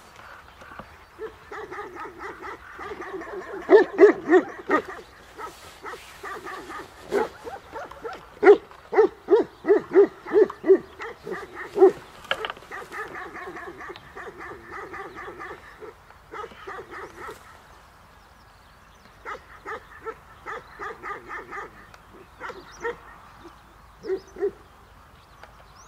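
Tibetan mastiffs barking in repeated, overlapping bouts. The loudest run of barks comes at about two a second in the first half, then the barking pauses briefly before starting up again.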